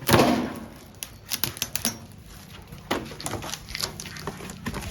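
Handling noise as a gas cylinder and stove are being installed: a knock at the start, then scattered sharp clicks and taps of hard parts being fitted.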